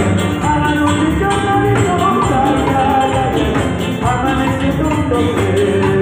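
A live Latin dance band playing an up-tempo tune, with congas, timbales and drum kit keeping a steady beat under a stepped melody line.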